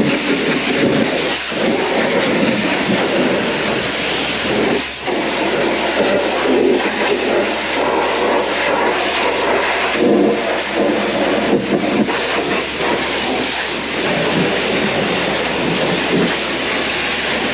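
Pressure washer spraying water onto a tractor: a loud, steady hiss of the jet that rises and dips slightly as the spray moves over the bodywork.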